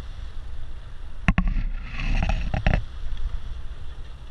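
A large hooked fish thrashing at the side of a boat, throwing up water: a sharp knock about a second in, then a short spell of splashing with a few quick knocks, over a low steady rumble.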